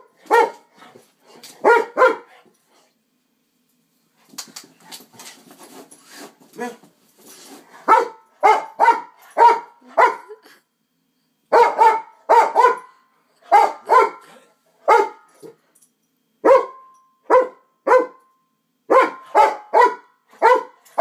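A dog barking repeatedly at a light-up LED hula hoop, in short barks that come in quick runs. After the first couple of seconds the barking stops for a few seconds, leaving only soft noises. From about eight seconds in it resumes and keeps on, two or more barks a second at times.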